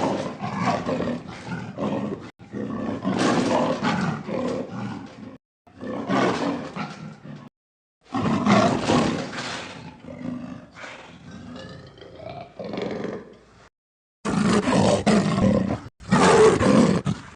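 Home-made leopard sound effects: a string of about six separate roar-like calls, each one to five seconds long, with brief silent gaps between them; the longest, about eight seconds in, fades out gradually.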